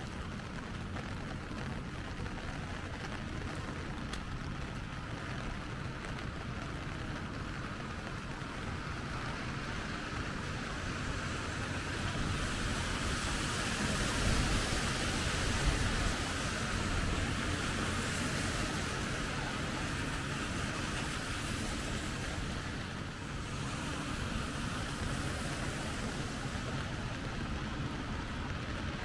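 City street in the rain: a steady hiss of traffic on wet pavement. It swells for several seconds around the middle as tyres pass through the wet, then settles back.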